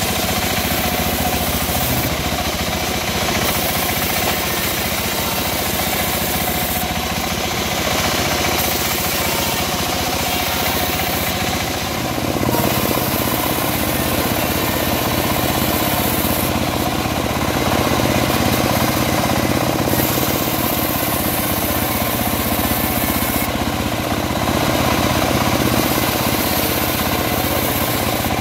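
Homemade band sawmill and its stationary engine running steadily while sawing teak. The blade's steady hiss and rasp through the wood sits over the engine drone, and the tone shifts about twelve seconds in.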